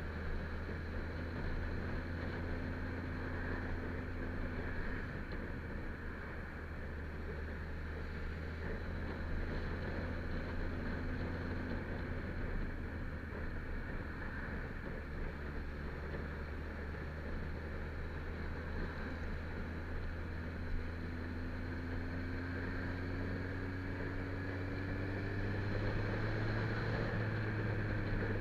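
Kawasaki Z1000's inline-four engine running steadily at moderate road speed, heard from the rider's seat. Its pitch climbs slowly over the last several seconds as the bike speeds up.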